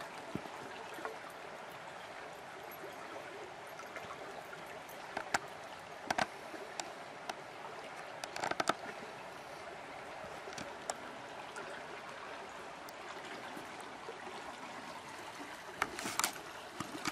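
Steady rush of a shallow river running over a rocky riffle, with a few scattered sharp clicks, a cluster of them near the end.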